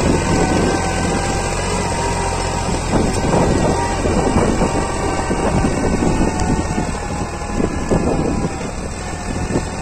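Massey Ferguson 260 tractor's diesel engine running steadily under load while pulling a trolley heaped with soil, a continuous low engine drone that dips a little near the end.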